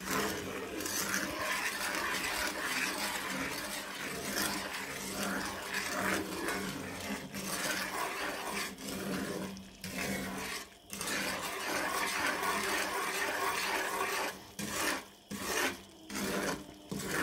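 Wooden spoon scraping and stirring around a cast iron skillet of butter and brown sugar cooking into caramel, a continuous rasping rub with brief breaks; near the end it turns into several separate short strokes. The sugar is still grainy and not yet melted into the butter.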